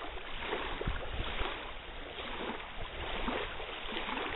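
Small waves lapping on a pebbly lakeshore, over a steady hiss of wind and water.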